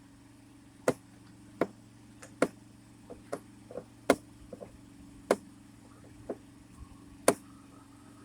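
About a dozen sharp, irregularly spaced clicks from a hand tool backing out a screw that holds a car's ignition switch, over a steady low hum.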